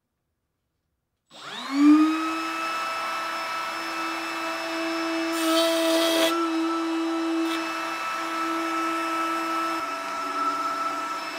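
Trim router mounted under a router table switching on about a second in and spinning up to a steady high whine. About halfway through, the straight bit cuts a notch in the edge of a wooden board, with a short burst of cutting noise over the whine.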